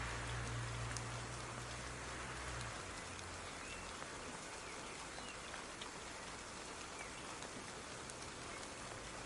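Soft, steady rain with scattered individual drops pattering. A low hum runs under it and stops about three seconds in.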